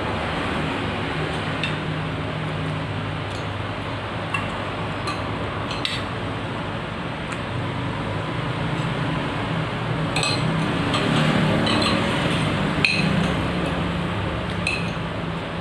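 Metal spoon and cutlery clinking against plates and dishes: scattered sharp clinks, a few in the first six seconds and a closer run from about ten seconds on, over a steady background hiss.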